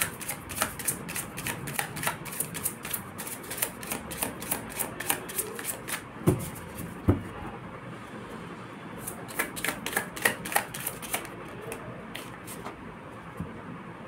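A deck of tarot cards shuffled by hand: quick runs of crisp card flicks, two soft thumps about six and seven seconds in, a short pause, then more flicks that thin out near the end.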